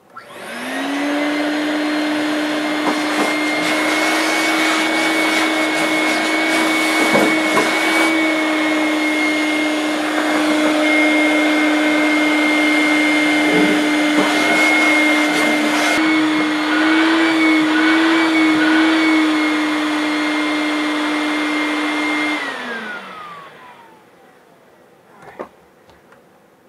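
Craftsman wet/dry shop vacuum switched on, spinning up within a second to a loud, steady whine as it vacuums out an aluminium boat, its pitch wobbling briefly about two-thirds through. About 22 seconds in it is switched off and winds down with a falling whine.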